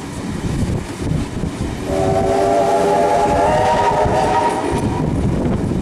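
Steam locomotive whistle sounding a chord of several notes at once, starting about two seconds in and lasting about three seconds, over the steady noise of the moving train.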